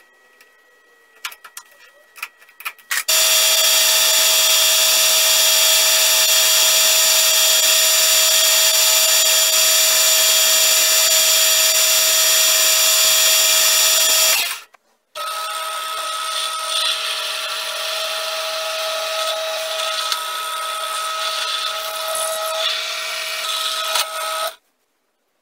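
A few clicks and knocks as an aluminium disc is clamped in a four-jaw lathe chuck. About three seconds in, a metal lathe starts turning it: a loud, steady running sound with several steady tones, ending abruptly about halfway through. Then a drill press runs, drilling the aluminium piece, steady and quieter, until it stops near the end.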